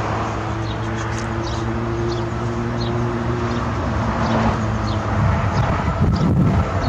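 Approaching train running with a steady low hum for about five seconds, then a rougher rumble near the end, with small birds chirping.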